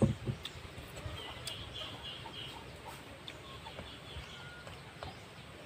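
Chickens clucking and chirping, with a single knock right at the start and scattered light clicks of a spoon on a metal plate.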